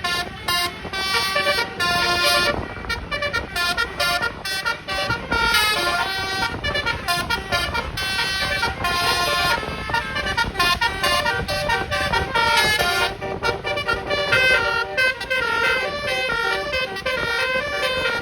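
Bus 'telolet basuri' musical air horn playing a fast melody of short stepped notes, several tones sounding together.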